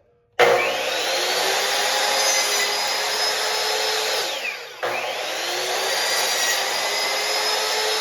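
Electric drill run twice: it spins up with a rising whine, runs steadily for about four seconds, winds down, then starts again and runs on.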